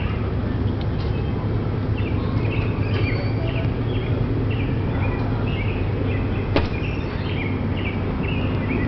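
Small birds chirping in many short, quick notes over a steady low rumble, with one sharp click a little past halfway.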